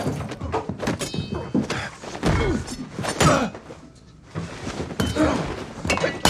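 Film fight sound effects: a fast run of heavy body blows, thuds and thumps as two men grapple hand to hand, with a short lull about four seconds in.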